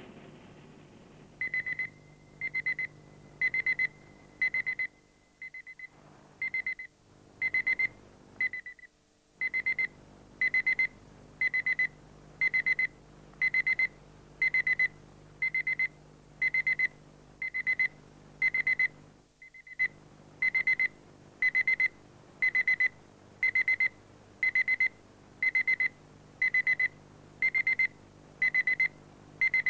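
Electronic alarm beeping: short high-pitched beeps repeating about once a second, each one a quick pulsed trill. The beeping drops out briefly a few times before carrying on, over a faint low hum.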